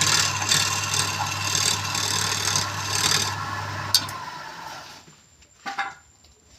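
Wood lathe motor running with a steady hum while something rubs against the spinning wood in a rhythmic rasping about every half second or so. A click about four seconds in, then the machine noise dies away, leaving a few faint knocks.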